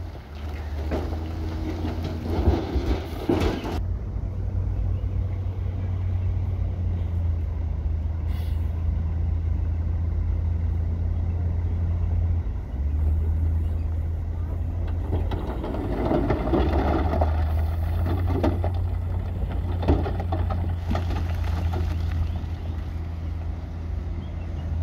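Heavy diesel construction machinery running with a steady deep drone. There are bouts of louder clatter and noise in the first few seconds and again about 15 to 18 seconds in.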